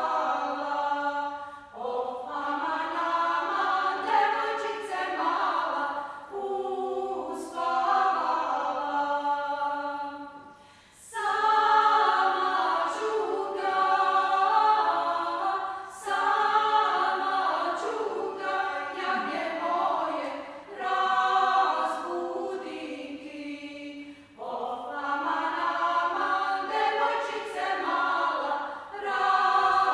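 Serbian women's folk choir singing together in several parts, in phrases of a few seconds with short breaks between them.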